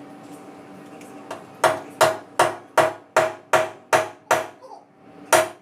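Hammer blows: about eight quick strikes at a steady pace, roughly two and a half a second, then one more strike near the end. Each strike leaves a brief ringing tone.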